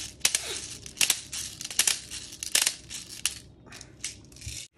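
BBs being loaded with a clear plastic speed loader into a Tokyo Marui MWS gas blowback magazine: quick irregular plastic clicks and rattling of BBs.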